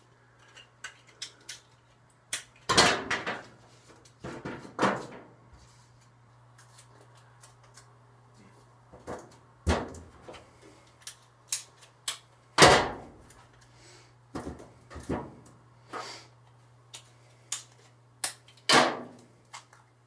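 Clicks, knocks and rustles of small objects being handled, with several louder tearing sounds of about half a second each as adhesive tape is pulled off the roll and torn. A faint steady low hum runs underneath.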